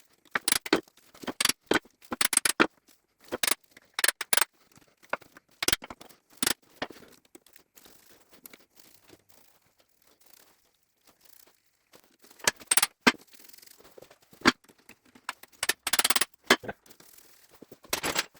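Irregular metal clinks, knocks and scrapes of hand work on a Gardner 2LW diesel engine as a crankcase side plate is taken off, with a quiet spell of a few seconds in the middle.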